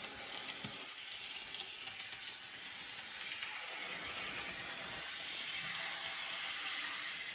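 HO scale model Gordon locomotive running on its track: the steady whir of its small electric motor and gearing, growing a little louder toward the end.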